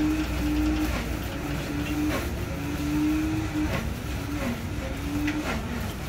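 Street traffic: a steady low engine rumble and hum that drops in pitch now and then, with a few sharp knocks and clinks from the stall.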